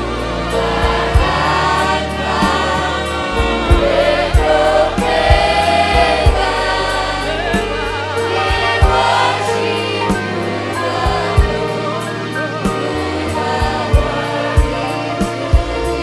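Gospel worship singing: voices in choir over a band, with a woman's voice on a microphone, steady bass and a regular drum beat.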